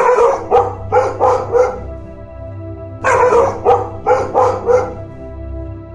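A dog barking in two quick runs of about five barks each, over background music with sustained notes.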